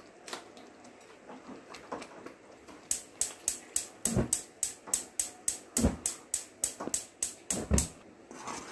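Steel ladle stirring thick curry gravy in a steel kadai, clinking against the pan about four times a second from about three seconds in, with a few heavier knocks.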